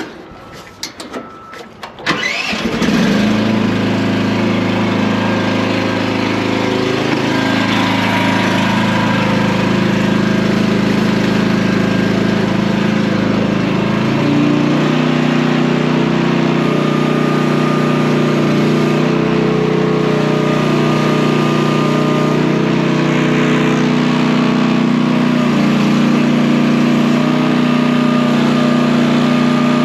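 Small engine of a Chinese mini excavator starting about two seconds in, after a few clicks, then running steadily. About halfway through it steps up to a higher, faster speed as the throttle is raised.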